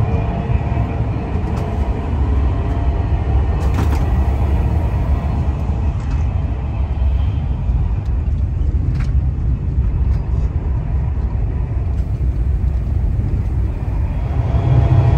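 Steady low rumble of a Thalys high-speed train running at speed, heard inside the passenger carriage, with a couple of faint clicks.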